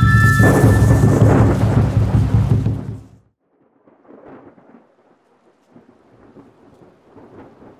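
A thunder-like rumble with a rushing hiss, laid over the end of the intro music, swelling about half a second in and fading out about three seconds in. A faint, sparse crackle follows.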